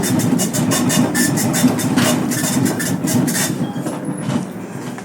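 Dot matrix printer printing: the print head rattles in rapid, dense strokes over a low mechanical hum, dying away near the end.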